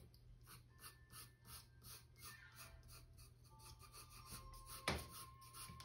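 Faint scratching of a colored pencil on drawing paper in quick repeated strokes, with soft background music.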